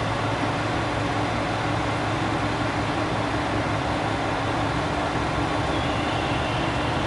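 Diesel railcar engines running with a steady low hum as a KiHa 189 series train creeps into the station.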